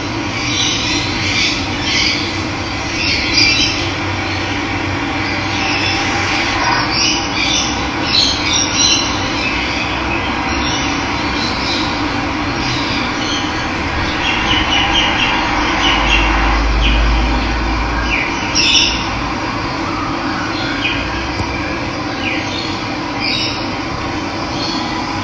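Running water flowing steadily, with wild birds chirping over it.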